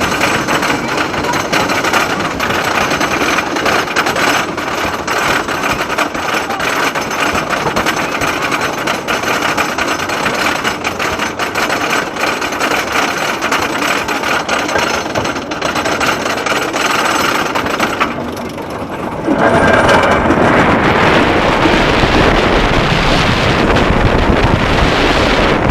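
Wooden roller coaster train climbing the chain lift, the chain and anti-rollback dogs clattering in a rapid steady rattle. About nineteen seconds in it goes briefly quieter as the train crests, then turns into a loud rush of wind on the microphone as the train drops.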